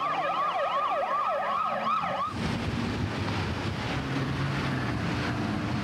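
Police vehicle siren yelping, its pitch sweeping rapidly up and down about three times a second. It cuts off suddenly a little over two seconds in. After that comes a vehicle engine running at speed with heavy road and wind noise as the car passes.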